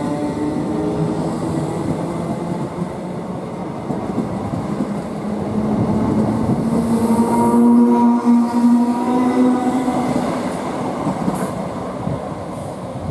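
Thameslink Class 319 electric multiple unit pulling away along the platform: a continuous rumble of wheels on rail, with clicks over the rail joints and a steady whine that swells about halfway through, then fades as the last coach passes.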